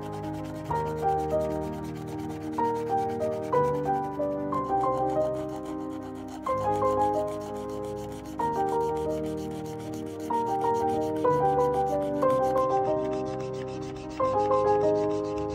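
Instrumental music of single notes that strike and ring away, over the rubbing of a Posca paint marker's tip scrubbed across paper.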